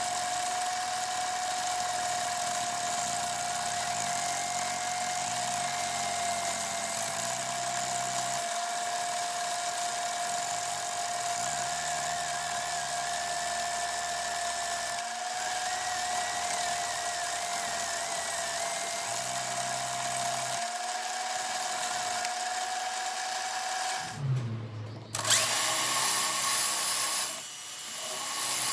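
Electric drill running steadily with a constant whine, its pitch dipping slightly now and then. Near the end it cuts out briefly, and a rougher, noisier tool sound follows.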